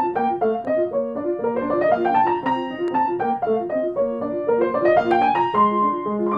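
Essex grand piano playing a classical passage: an Alberti bass, a broken chord repeated note by note in the left hand, under a right-hand melody that twice climbs in quick rising runs, settling into longer held notes near the end.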